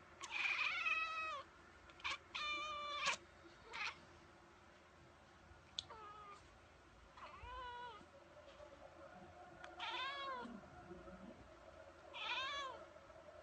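Domestic cat meowing repeatedly, about seven drawn-out meows that bend in pitch, spaced a second or two apart.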